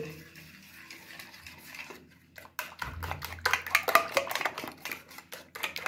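Egg being beaten by hand in a ceramic plate: a utensil scraping and clicking against the plate. It is faint at first, then turns into quick, dense clicking strokes about halfway through.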